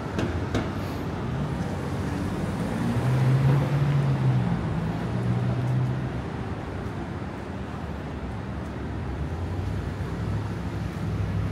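City street traffic: a steady wash of passing vehicles, with a low engine drone that swells and fades a few seconds in and rises again near the end.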